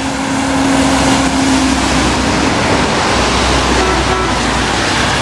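Heavy dump truck driving past on a wet road, its steady engine drone fading out after about two and a half seconds, over a loud, steady rushing hiss.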